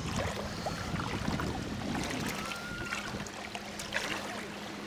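Water lapping and trickling gently against an inflatable PVC boat's hull, with scattered light clicks and knocks.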